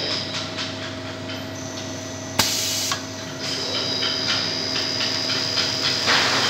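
CNC wood lathe cutting a spinning wooden spindle blank: a steady motor hum under a constant irregular patter of chips and cutter ticks. About two and a half seconds in, a sudden loud hiss lasts about half a second.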